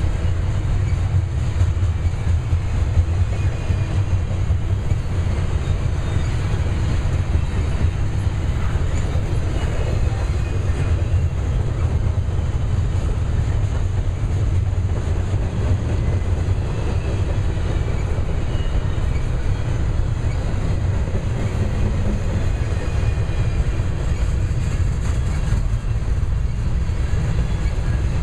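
Double-stack intermodal container well cars rolling past: a steady, low rumble of steel wheels on the rails.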